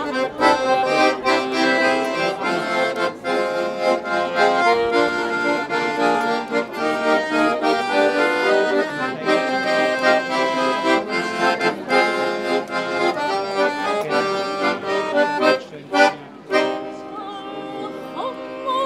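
Accordion playing a tune, chords and melody over a steady rhythm, falling quieter for the last few seconds.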